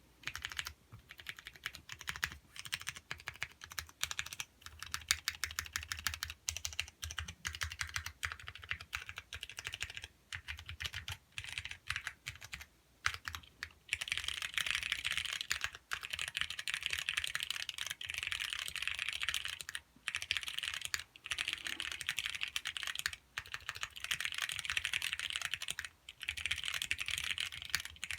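Typing on a custom ergonomic keyboard: a steady patter of key clicks, separate strokes at first, then a fast near-continuous run from about halfway, broken by short pauses.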